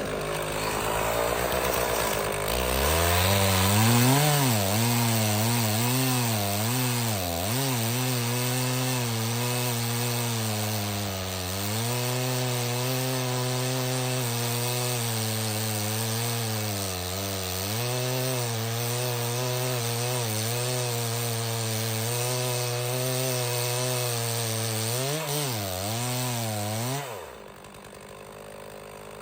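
Stihl 066 two-stroke chainsaw cutting into a large red oak log, its engine pitch sagging and recovering again and again as the chain bites under load. About two seconds before the end the sound drops off sharply to a much lower level.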